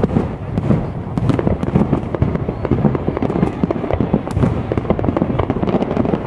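Aerial fireworks display: shells bursting in rapid, overlapping bangs and crackles, one after another without a pause.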